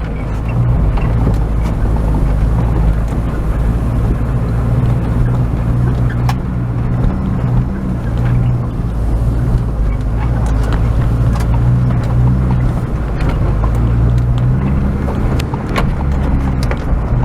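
Opel Frontera A Sport's engine running steadily while driving off-road, with a few sharp knocks over it.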